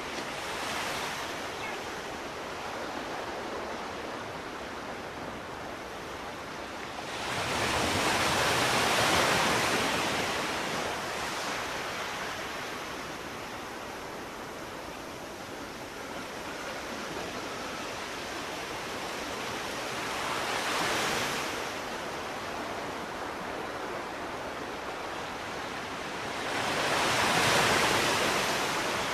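Ocean waves breaking on a shore: a steady wash of surf with three louder waves swelling and receding, about seven seconds in, around twenty seconds, and near the end.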